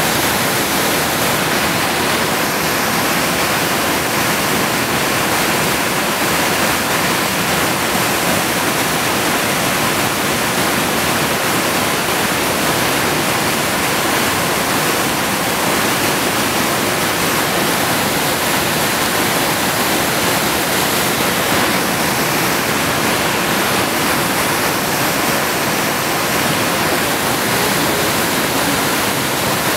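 Whitewater rapids of a rocky creek rushing loudly and steadily.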